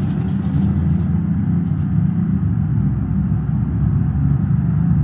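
A steady, loud, low mechanical rumble that holds unchanged throughout.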